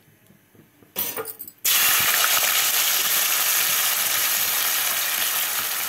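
Sliced ivy gourd (dondakaya) going into hot oil in a kadai: a sudden loud sizzle of deep frying starts about a second and a half in, after a short quiet, and stays steady.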